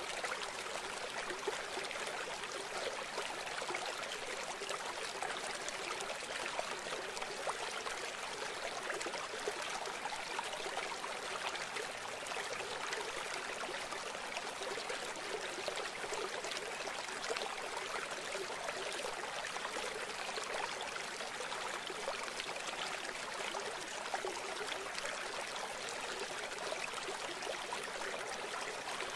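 A steady rushing sound of running water like a stream, unchanging, with almost nothing in the low end.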